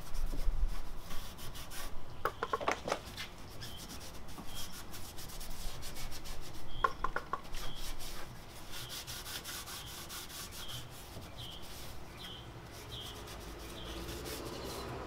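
Microfiber cloth rubbing back and forth over the car's painted body panel around the taillight opening, wiping off sprayed-on cleaner. The strokes are rough and repeated, and grow lighter about halfway through.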